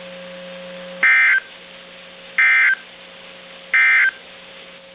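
Emergency Alert System end-of-message code on NOAA Weather Radio: three short, identical bursts of buzzy digital data tones, a little over a second apart, marking the end of a severe weather warning. A faint steady hum runs beneath them.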